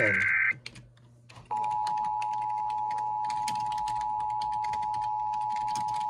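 An Emergency Alert System broadcast: the final SAME header data burst, a buzzy two-tone digital squawk, ends about half a second in. After a second's pause the EAS attention signal, a steady 853 and 960 Hz dual tone, begins, with fast faint clicking behind it.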